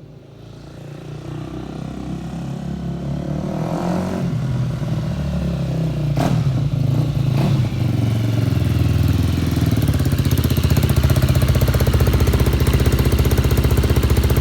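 KTM EXC-F 250's single-cylinder four-stroke engine running after a camshaft and bearing-bridge repair, growing steadily louder over about ten seconds, then running loud and even close by. Two sharp clicks come about six and seven seconds in.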